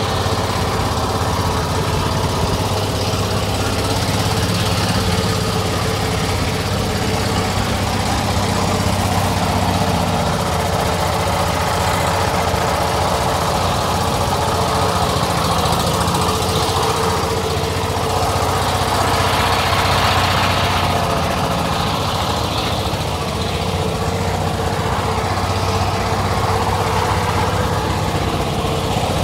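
The engine of a wooden motorised river boat running steadily under way, a constant drone, mixed with water rushing and splashing along the hull.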